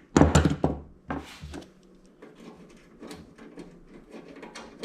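Sheet-metal and plastic parts of a toaster oven knocking and clattering as they are handled during disassembly, with several sharp knocks in the first second and a half, then only faint light clicks.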